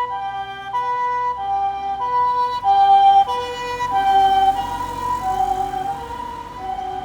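Japanese ambulance's harmonic two-tone siren on an emergency run, a high and a low note alternating, each held a little over half a second. It gets loudest about three seconds in as the ambulance passes, then the notes drop slightly in pitch and fade as it moves away, with the vehicle's road rumble beneath.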